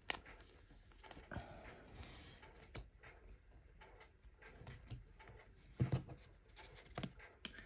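Faint handling of trading cards: quiet rustling and small clicks as cards are slid and flipped through by hand, with a couple of slightly louder taps about six and seven seconds in.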